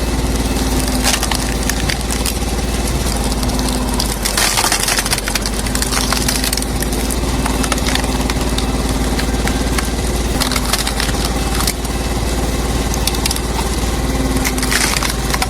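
Engine-driven wood-processing machine running steadily while wood cracks and splinters in it, with dense crackling throughout.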